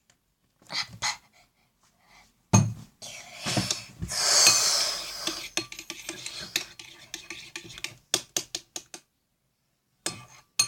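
A utensil clinking and scraping against a bowl while slime ingredients are added and mixed, with a hard knock about two and a half seconds in and a loud rustling hiss a little later, then a run of quick clicks.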